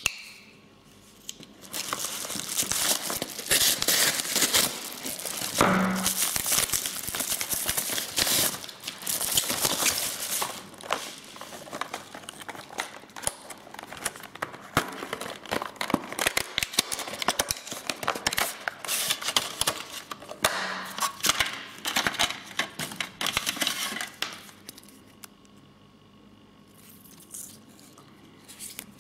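Crinkling and rustling of packaging as a bubble-lined paper mailer is opened and a watch is unpacked from its box, dying down near the end.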